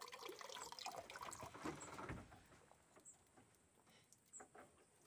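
Near silence: a few faint taps and clicks, and a faint high chirp repeating about every second.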